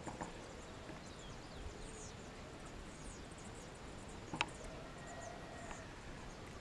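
Faint outdoor rural background with scattered distant bird chirps, and a single sharp click about four and a half seconds in.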